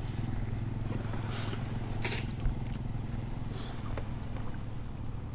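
A steady low engine hum, with two short watery splashes about a second and two seconds in and a single sharp knock just after.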